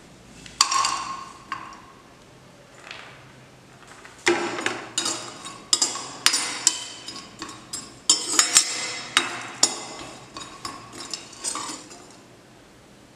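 Steel ladle clinking and scraping against a dry metal pan as coconut slices are tipped in and stirred to dry-roast, with no oil sizzling. A single ringing clank comes about half a second in, then from about four seconds a long run of quick metallic clinks and scrapes.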